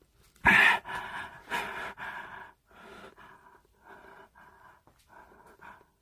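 A person breathing hard and fast close to the microphone: a loud sharp breath about half a second in, then quick breaths about two a second.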